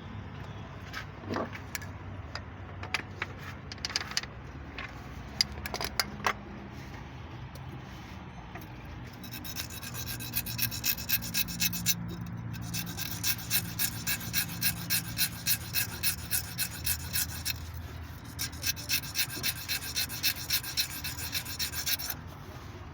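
Quick back-and-forth rasping strokes of a hand tool, about three a second, in three runs with short pauses, typical of filing or scraping. Before that come scattered light clicks and knocks of tools being handled.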